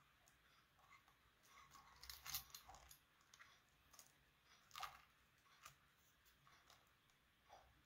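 Near silence with faint, scattered clicks and rustles of hands working wires and a wire nut inside a ceiling fan's metal switch housing. The clicks cluster about one and a half to three seconds in, with a couple more near the middle.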